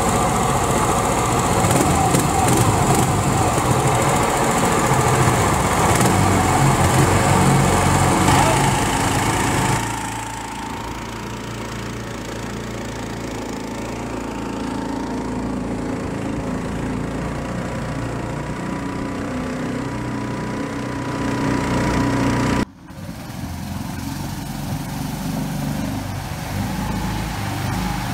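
7-horsepower air-cooled small engine on a Mud Skipper surface-drive mud motor, running steadily under way and pushing a jon boat. The sound changes abruptly about ten seconds in and drops out for a moment about two-thirds of the way through.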